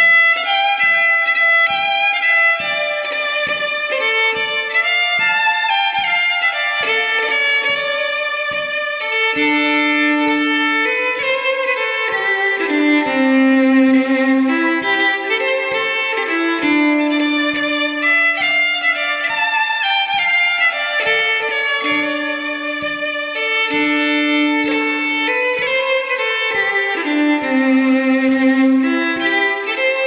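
Solo fiddle playing a Scottish march tune at a slow tempo, with dotted rhythms and grace notes. Soft low thumps keep a steady beat under the melody.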